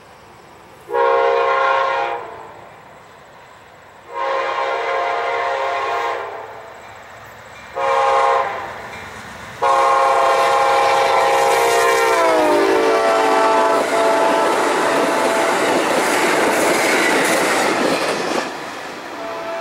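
Amtrak GE P42DC locomotive's air horn sounding the grade-crossing pattern of long, long, short, long. The last long blast drops in pitch as the locomotive passes. Then comes the rushing, clattering noise of the passenger train going by at speed, wheels on rail, easing off near the end.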